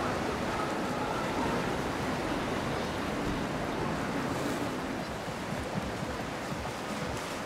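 Steady rushing noise of water and wind, with no distinct events.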